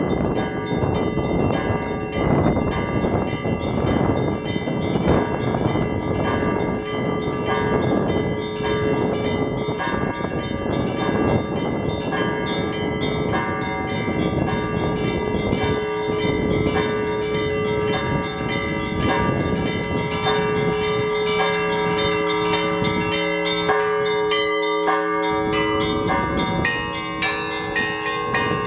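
Orthodox church bells rung by hand as a full peal: small bells struck in quick succession over the longer ringing of larger bells. Gusting wind rushes over the microphone, heavy at first and easing about halfway through.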